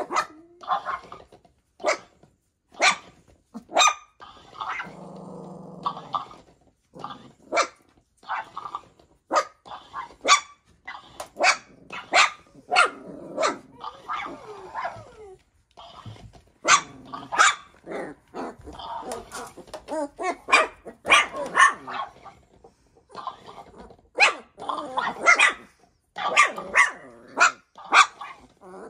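Puppies barking in many short high barks, often several in quick succession, with growling, as they react to a plush toy that makes noises. About five seconds in there is a longer, lower drawn-out sound.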